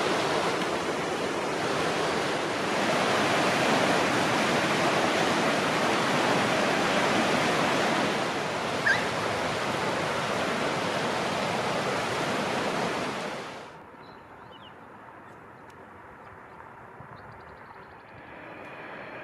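Swollen, muddy creek in flood rushing past, a steady loud rush of water with one brief chirp about nine seconds in. The rush cuts off about fourteen seconds in, leaving a much quieter background with a few faint high chirps.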